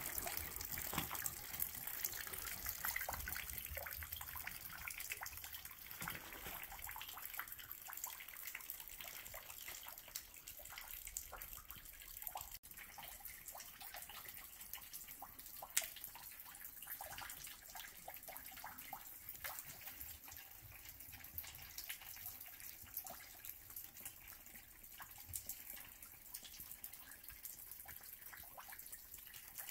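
A small stream of water trickling and dripping over rocks, with many small splashy drips. It grows gradually fainter over the first several seconds, then runs on steadily.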